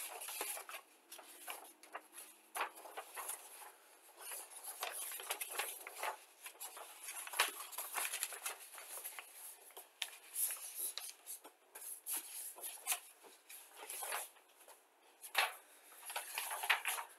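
Printed paper sheets rustling and crinkling as they are handled and shuffled, in irregular crackles that come and go.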